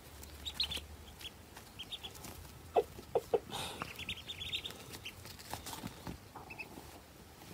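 Ducklings peeping: short, high-pitched peeps in quick runs of several at a time, coming and going, with a few lower short calls near the middle.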